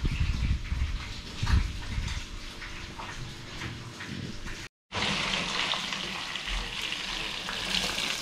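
Bumps and rustling as whole seasoned fish are moved about in a foil tray with tongs. After a sudden cut about halfway through, a whole fish frying in hot oil in a skillet gives a steady sizzle.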